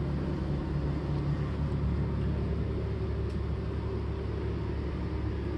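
Steady low engine rumble with a faint hum, heard inside the cabin of a boat under tow.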